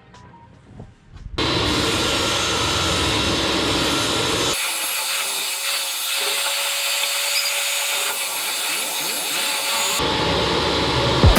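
A power tool working pine: loud, steady machine noise that starts about a second and a half in and changes character abruptly twice, as the cut or sanding moves between shots.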